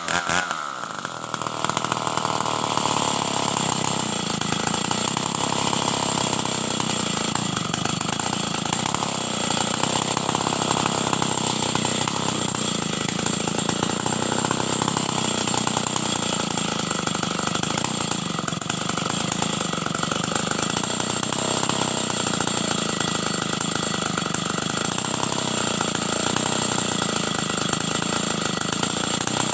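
Stihl 070 two-stroke chainsaw running steadily at high speed under load, ripping timber lengthwise into boards. The level dips briefly about a second in, then holds even.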